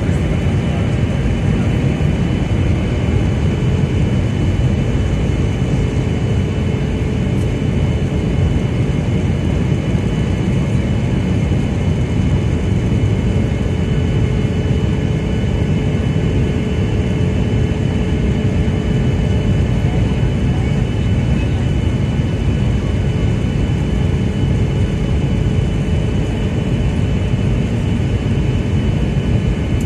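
Steady cabin roar of a Boeing 737-800 in flight, heard inside the cabin by the wing: its CFM56-7B turbofans and the rush of air, with a thin steady whine above the low rumble.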